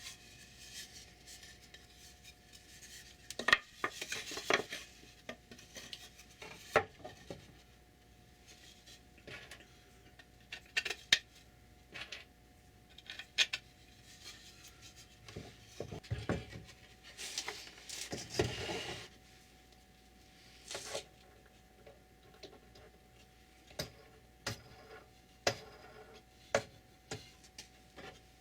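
Parts of a wooden saw-table jig being handled and fitted back together by hand: irregular clinks and knocks, with two longer stretches of rubbing about four and eighteen seconds in.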